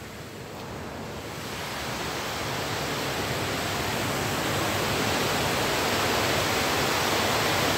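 Rushing water of a moorland stream or waterfall, a steady even roar that grows gradually louder over the first five seconds or so, then holds.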